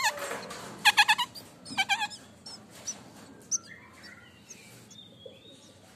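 White-breasted woodswallow (kekep babi) nestlings begging: a quick run of about four high, pitched calls about a second in, another run a second later, then only faint sounds.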